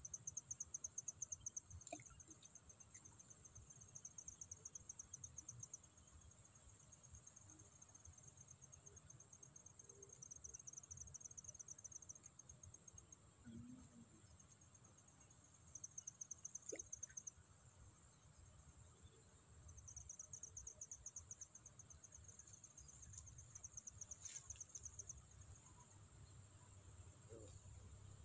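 Insect chorus: a steady high-pitched whine, with a rapid pulsing trill from another insect coming and going in stretches of a few seconds.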